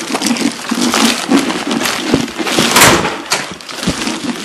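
Rustling and handling noise from packages being gathered and carried, with scattered knocks and bumps and a louder rustle about three seconds in.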